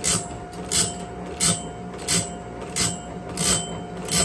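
Electric band-blade sharpener running, its grinding wheel dressing one saw tooth after another: a short grinding rasp about three times every two seconds over a steady motor hum. It is sharpening a sawmill band blade, cleaning out each tooth's gullet.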